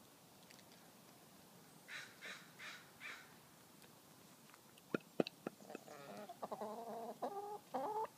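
Backyard hens clucking: four short raspy calls about two seconds in, then a few sharp clicks and a quick run of short pitched clucks through the second half.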